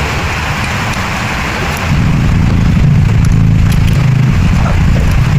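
A running engine with a steady low hum that gets louder about two seconds in.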